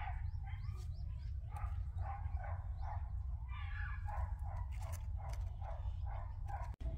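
An animal calling over and over in short pitched calls, a few each second, over a steady low rumble.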